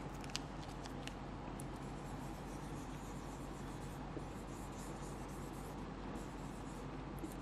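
Felt-tip marker drawing on a whiteboard: faint scratchy strokes as a curly tree outline is sketched, with a couple of light clicks near the start, over a steady low hum.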